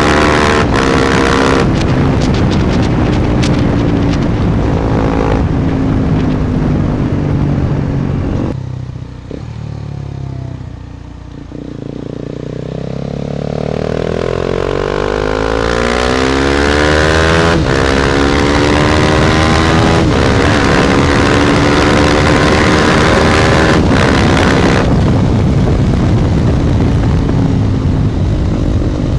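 KTM Duke 250 single-cylinder engine running through an Akrapovic exhaust while riding, with wind noise on the microphone. It runs steadily at first. About a third of the way in the throttle comes off and the note drops and quietens for a few seconds, then the revs climb again with a couple of breaks in the note and settle into a steady cruise.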